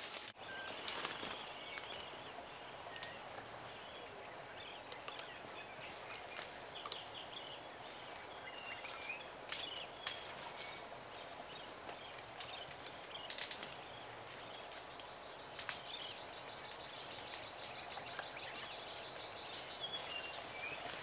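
Forest ambience: scattered short bird calls over a steady hiss, with a few sharp cracks. From about fifteen seconds in, a rapid, evenly pulsing high trill runs for some five seconds.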